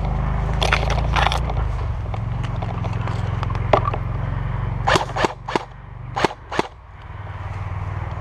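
Footsteps and brush rustling as someone moves quickly through dense woodland undergrowth, with a handful of sharp cracks: two about a second in, one near the middle, and a quick run of about five a little later, when the movement noise drops away.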